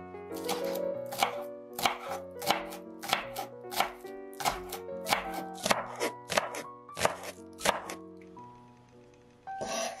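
Kitchen knife chopping green onions on a wooden cutting board: a steady run of sharp chops, one or two a second, stopping about eight seconds in. Background music plays throughout.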